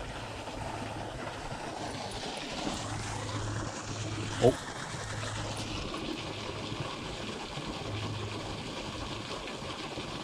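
Steady rush of river current flowing over rocks, with a low hum coming and going. About four and a half seconds in there is one brief, sharp squeak that rises in pitch.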